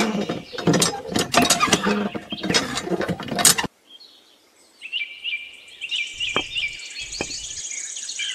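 Handling noise from fitting the parts of a miniature hand pump: a dense run of small clicks, scrapes and taps that cuts off suddenly about three and a half seconds in. Birds chirp over the second half, with a couple of soft knocks.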